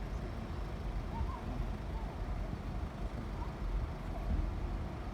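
Steady low rumble of idling diesel engines, with a few faint short chirps about a second in.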